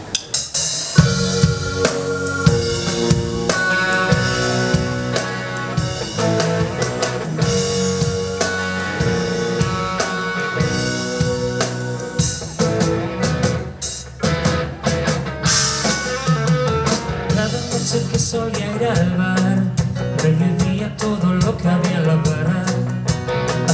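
Live pop-rock band playing the instrumental intro of a song: drum kit with snare and bass drum, electric bass, guitar and keyboards, kicking in together about a second in.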